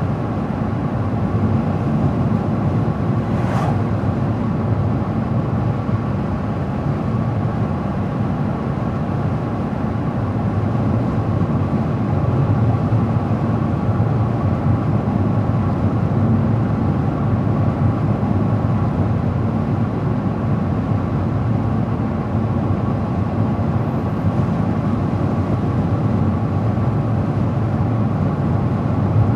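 Steady road and engine noise of a moving car, a continuous low rumble with a faint constant hum above it. A faint click comes about three and a half seconds in.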